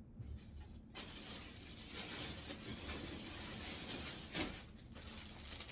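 Rustling and handling noise of clothes and their packaging being moved about, with a brief louder rustle about four seconds in.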